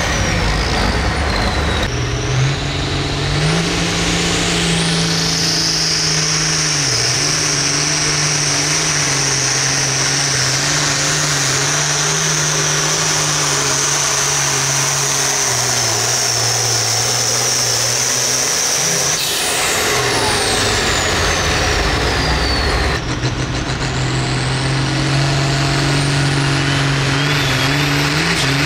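Pulling tractor engines running at full throttle under load as each tractor hauls the weight sled, with a steady high whine over the engine. The sound changes abruptly two or three times as one run gives way to the next.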